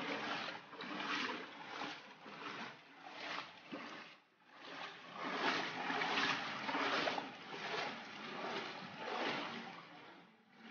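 Steps wading through floodwater, each one a splash and slosh, about one every 0.7 seconds, with a brief pause about four seconds in.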